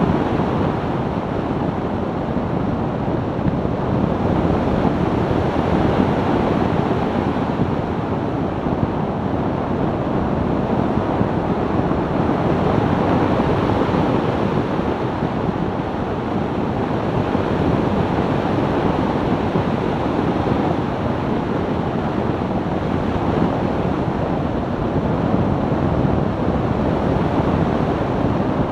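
2002 BMW E46 330Ci cruising: a steady rush of wind and road noise, with wind buffeting the microphone and no distinct engine note standing out.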